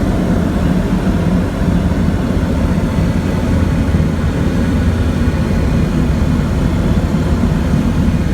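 Strong wind rushing over the microphone, a loud, steady low rumble.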